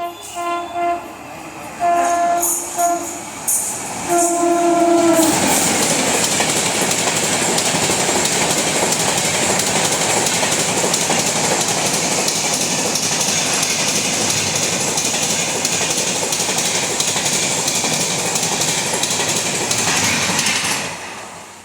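An Indian Railways WAP-7 electric locomotive sounds its low-tone horn in several short blasts, the last one longer, about four seconds in. Then the express train passes at speed: a loud, steady rush of wheels and coaches with clickety-clack that fades near the end.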